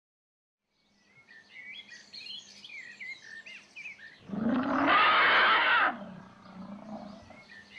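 Birds chirping, starting about a second in, as a jungle-like backdrop. About four seconds in comes a loud, rough elephant trumpet lasting about a second and a half.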